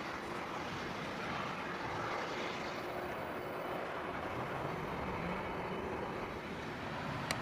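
Boeing 747-400F freighter's jet engines running at low power as it moves off after pushback, a steady even rumble and hiss. A short click sounds near the end.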